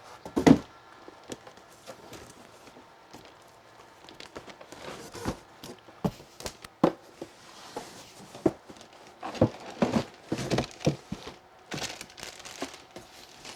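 Packaging of a Cricut EasyPress 2 being handled and unpacked: cardboard and plastic rustling and crinkling, with scattered knocks, a sharper one about half a second in and a busier patch of rustling and knocks near the end.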